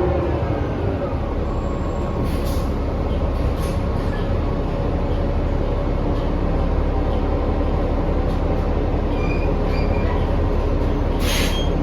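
Inside a New Flyer XD40 diesel city bus under way: steady drivetrain rumble with a squealing, whining tone running over it, the abnormal noise that makes this bus sound insane. A couple of sharp rattles near the end.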